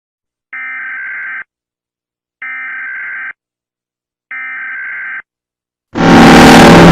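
Emergency alert alarm: three identical electronic beeps, each just under a second long and about two seconds apart, then near the end a sudden, very loud, harsh and distorted alarm blast.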